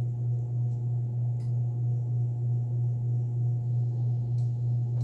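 44-inch Harbor Breeze Annalise ceiling fan running on high: a steady, kind of loud low hum that swells and fades gently, with blade noise the owner puts down to blade vibration.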